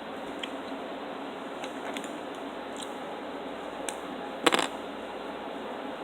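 Small handling noises over a steady hiss: a few faint clicks, then a short, sharp clatter about four and a half seconds in.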